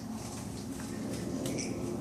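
Common brushtail possums vocalising, with a sharp click about one and a half seconds in.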